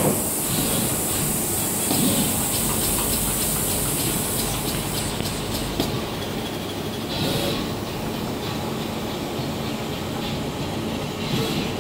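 SMT pick-and-place machine running: a steady mechanical whir with quick runs of clicking as the placement head moves and places parts, and short hisses of air about 7 and 11 seconds in.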